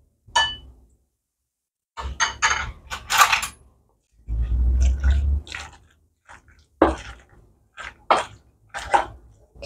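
Metal spoon stirring sliced raw beef and a raw egg together in a stainless steel bowl: wet squishing with clinks and scrapes of the spoon against the bowl, which come in a quick run of about two or three a second in the second half.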